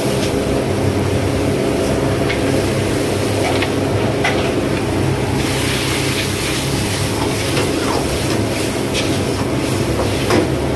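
Sauce sizzling in an iron wok over a steady roar and hum, with the hiss growing louder for a second or two around the middle. A few short clinks of a steel ladle against the wok.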